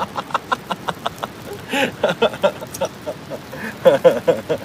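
A man laughing in short breathy bursts over the crackle and sizzle of Pacific saury fat dripping onto the charcoal of a shichirin grill, many quick sharp pops.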